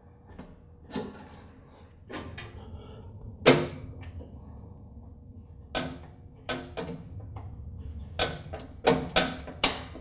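Metal clicks and clinks of a lawn tractor's PTO cable end and its wire retaining clip being worked into a steel bracket by hand. About ten separate clicks, the loudest about three and a half seconds in, with several in quick succession near the end.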